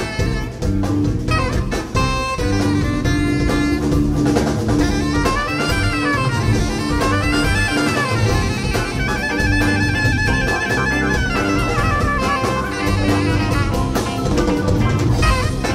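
Live jazz-rock band playing: drums, bass and electric guitar, with a wind instrument playing a lead line that runs up and down through the middle.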